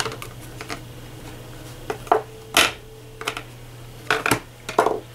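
Light clicks and knocks of thin painted wooden panels being handled and set down on a work board: a few separate clacks, the loudest about halfway through and a small cluster near the end, over a steady low hum.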